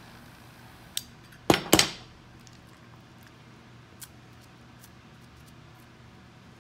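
Flip-top metal lighter handled and struck: a light click about a second in, then two sharp metallic clicks in quick succession about a second and a half in. After that there is only low room tone with a few faint ticks while the paracord end is heated.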